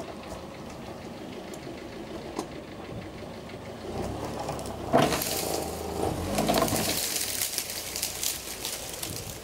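A small car's engine revving under load as it pulls a chained dead tree out of the ground. A sharp crack comes about five seconds in, then a few seconds of crackling and tearing as the tree gives way.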